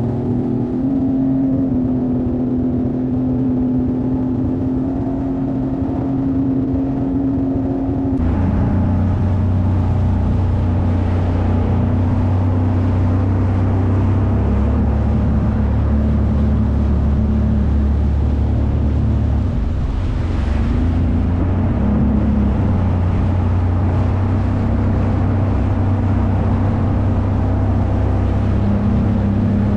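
Jet ski engine running steadily under way. About eight seconds in it steps up to a deeper, stronger note with more rushing noise of water and wind. Its note dips briefly about two-thirds through and then picks up again.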